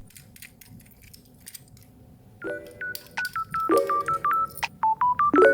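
Short electronic beeping notes in a quick, stepping tune, like telephone keypad tones. They start about two and a half seconds in, after a stretch of faint clicks.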